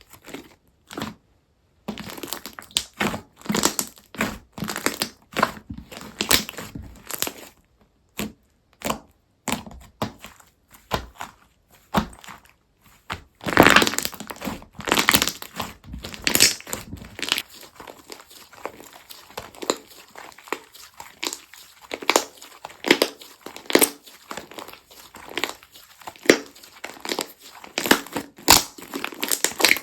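Slime being squeezed, poked and stretched by hand, giving irregular crackling, crinkly clicks and pops. It starts about two seconds in after near silence, pauses briefly twice, and is loudest in the middle.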